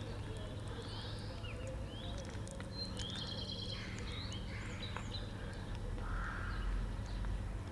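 Small birds chirping: repeated short rising chirps, with a brief trill about three seconds in, over a steady low hum. Faint clicks of kittens licking and chewing soft wet cat food come through underneath.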